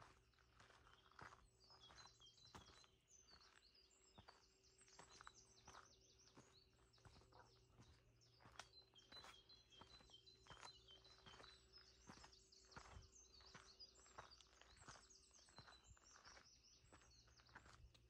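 Faint footsteps of a person walking on a path at a steady pace, about one and a half steps a second, with small birds chirping and twittering through most of it.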